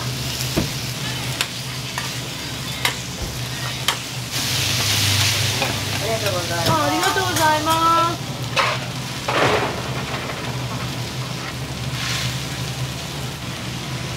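Okonomiyaki frying on a hot teppan griddle: a steady sizzle, with metal spatulas clicking and scraping on the plate every second or so, and a louder burst of hissing about four seconds in.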